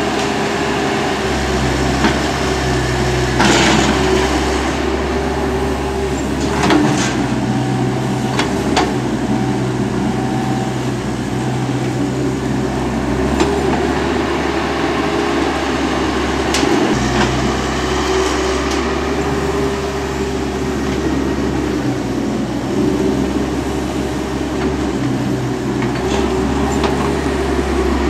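Diesel engine of a CAT tracked excavator running at work loading dirt into a dump truck, its drone rising and falling in steps as the hydraulics take load through each dig-and-swing cycle. A few sharp knocks and clanks stand out, several of them in the first half.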